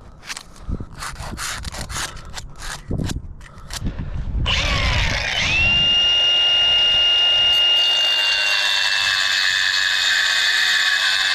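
A quick series of short scraping strokes, then about four and a half seconds in a power tool starts and runs steadily with a high whine, louder than the strokes.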